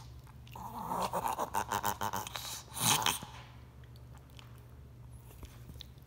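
Yorkshire terrier reverse sneezing: a rapid run of forceful inward breaths through the nose from about half a second in. A louder one comes near three seconds, then it stops.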